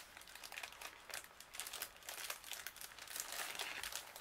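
Small clear plastic bag crinkling in the hands as it is opened and the stickers inside are pulled out, a continuous run of crackles.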